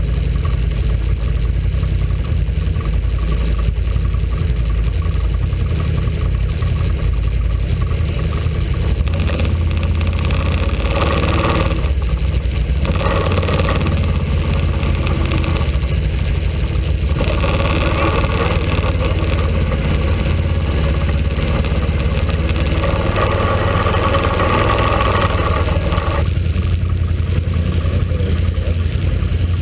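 ATV engine running close by with a steady low drone. Its sound swells with extra higher noise in stretches through the middle as the machine gets under way.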